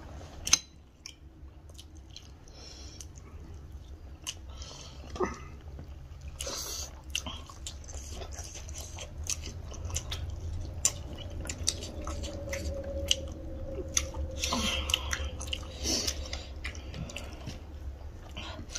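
Two people chewing and eating rice and curry with their hands, close to the microphone: many short irregular mouth clicks and smacks over a steady low hum.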